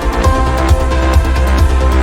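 Electronic dance-style background music with a steady low beat and sustained synth tones.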